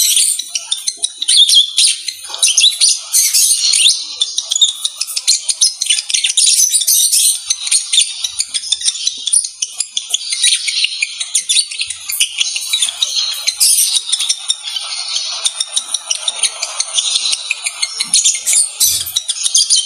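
A pair of lovebirds chattering without pause: a dense, rapid stream of high chirps and twitters, the chatter of a pair mating.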